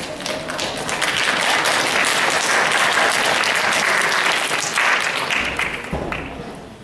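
Audience applauding. The clapping swells about a second in, holds steady, and dies away near the end.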